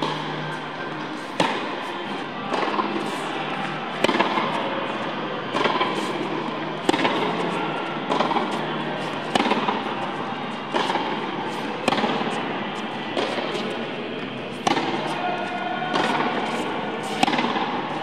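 Tennis balls struck by rackets in a baseline rally, a sharp hit with a hall echo about every second and a half, alternating between the two players.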